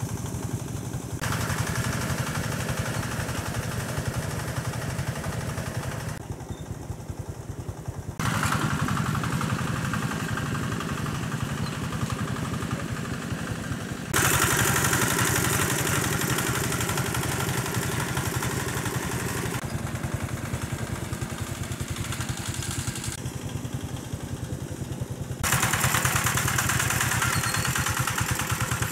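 Engine-driven water pump running steadily, its engine pulsing evenly, with abrupt shifts in level and tone every few seconds; it is loudest from about 14 seconds in and again near the end.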